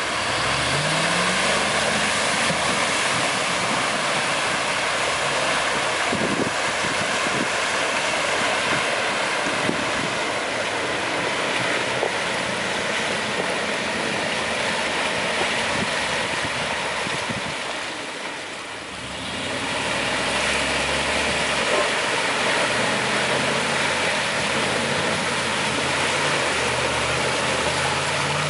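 Dodge Ram 1500 pickup's engine revving hard under load as it ploughs through deep mud, over a steady rush of spinning tyres throwing mud and water. The engine pitch climbs about a second in, and the sound drops away briefly about two-thirds of the way through before coming back.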